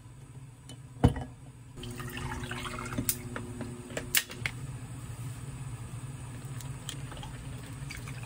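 An ice ball clinks into a glass tumbler about a second in. A plastic bottle cap clicks open a few seconds later, and then water pours from a plastic bottle into the glass over the ice.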